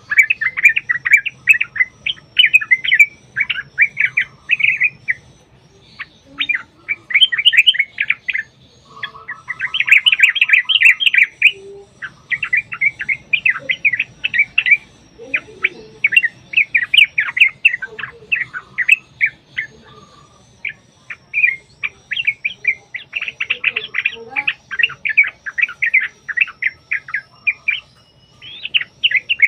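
Yellow-vented bulbuls chattering in long, rapid, bubbly bursts of notes a few seconds each, with short pauses between bursts: the excited 'ropel' chatter of birds calling against each other.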